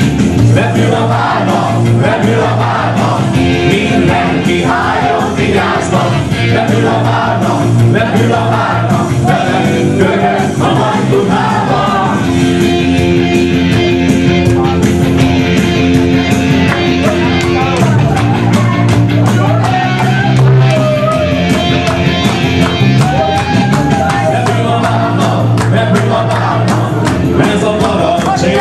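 Live dance band playing loud upbeat music: held chords over a steady drum beat, with a voice singing at times.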